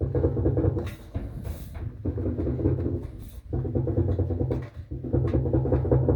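Candy RapidO washer-dryer drum rumbling on failing bearings, in stretches of about a second broken by brief pauses, with a few clicks. The rough rumble is the sign of worn drum bearings, which the owner believes are falling apart again a month after replacement.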